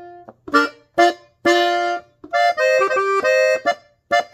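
Hohner button accordion tuned in F, on its clarinet register, playing a phrase of melody. First come a couple of short punched notes, then a held note, then a quick run of notes, and a new note starts near the end.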